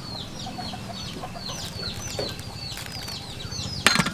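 Chicks peeping over and over, each peep a short falling chirp, with a sharp knock near the end.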